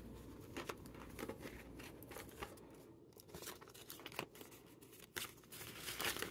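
Paper dollar bills and a clear plastic binder pocket being handled, giving faint, irregular crinkles and rustles as cash is slipped into the pocket.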